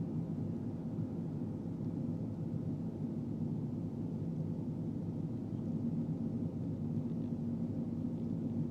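Manitowoc 2250 crawler crane's diesel engine running steadily under load, heard from the operator's cab as an even low hum.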